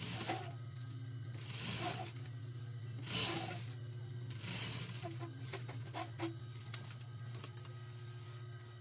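Fabric rustling and being handled at an industrial sewing machine in several short bursts, with a few light clicks, over a steady low hum.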